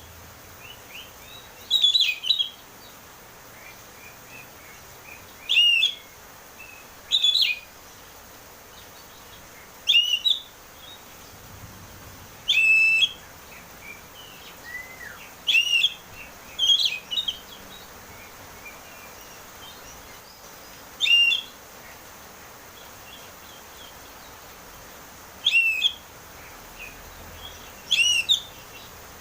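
Oriental magpie-robin (kacer) singing in the loud, open 'ngeplong' style: short, clear whistled phrases, each a quick arching note, repeated about ten times with gaps of one to four seconds between them.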